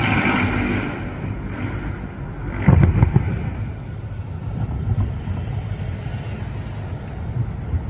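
Distant fireworks: a crackling fizz that fades over about a second at the start, then a cluster of booms about three seconds in, over a low steady rumble.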